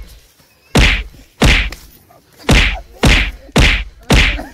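Six loud whacks of kicks and blows landing in a scuffle, coming in an uneven run about half a second to a second apart.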